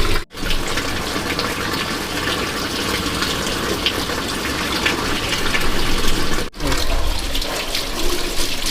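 Water running and splashing steadily, as when produce is washed under running water. The sound breaks off very briefly twice, about a third of a second in and near six and a half seconds in.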